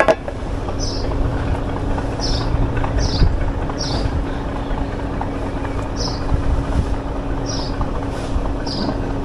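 An engine running steadily, a low rumble with a constant hum, with short high chirps repeating every second or so over it. A sharp click right at the start.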